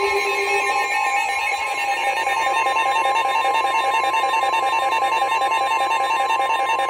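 Emergency Alert System two-tone attention signal: two steady alert tones held together without a break, the signal that comes before a warning's spoken message. About a second in, a lower tone underneath drops out.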